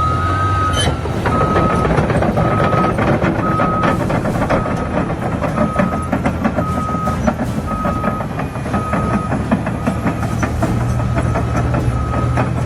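Cat D6 bulldozer's diesel engine running under load with continual clattering and cracking, while a reversing alarm beeps about one and a half times a second, pausing briefly near the end.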